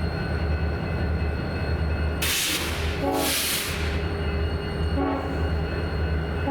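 BNSF empty coal train passing slowly, a steady low rumble with a few steady tones over it. Two short bursts of hiss come a little past two seconds in and just after three seconds.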